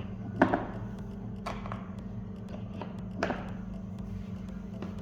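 A box being opened and handled: a few separate knocks and taps, about three in all, over a steady low hum.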